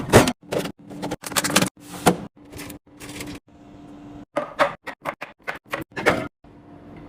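Irregular run of sharp clicks, taps and knocks as items and packaging are handled and set down while restocking, over a faint steady hum.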